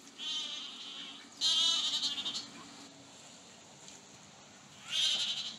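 Goats bleating: three wavering, quavering calls, the second the loudest and longest, the last near the end.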